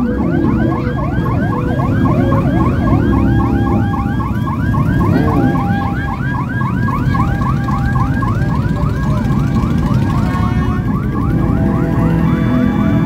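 Sirens yelping in fast, repeating rising sweeps, several overlapping, over the low rumble of a procession of motorcycle engines passing.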